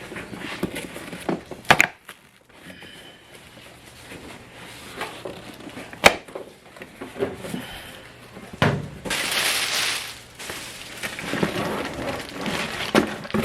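Cardboard parts boxes and plastic packaging being handled and opened: scattered knocks and clicks, a sharp snap about six seconds in, and a stretch of rustling a little after nine seconds.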